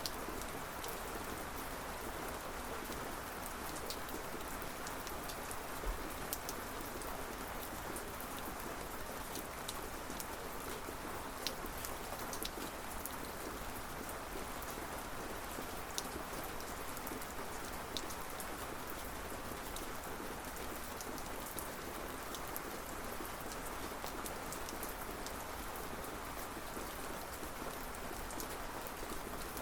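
Steady rain falling, with many close individual drops ticking on a surface and a few louder drips scattered through.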